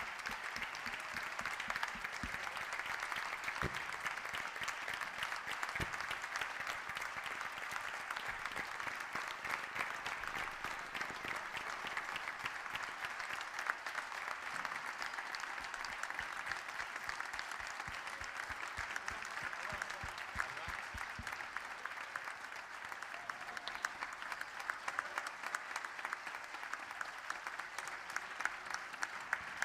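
A large audience applauding steadily, a dense, continuous patter of hand clapping.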